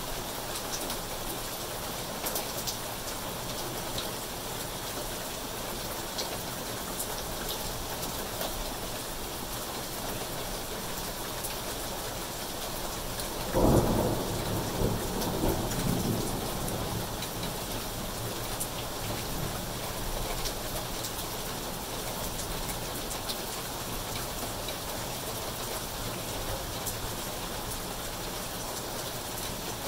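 Steady rain falling on foliage and pavement, with scattered drops ticking close by. About halfway through, a sudden thunderclap breaks out and rumbles away over a few seconds.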